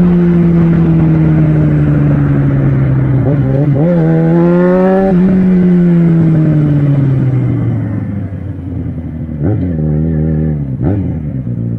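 Yamaha XJ6's inline-four engine through an aftermarket sport exhaust while riding. The note sinks slowly, climbs sharply about four seconds in, then falls away and gets quieter. Two quick throttle blips rise and fall near the end.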